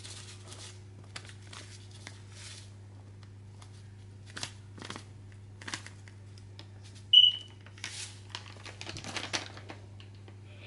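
Plastic seasoning packet crinkling and rustling as it is shaken over raw chicken pieces in a glass bowl, with small scattered clicks and taps. A single short high beep about seven seconds in is the loudest sound. A low steady hum runs underneath.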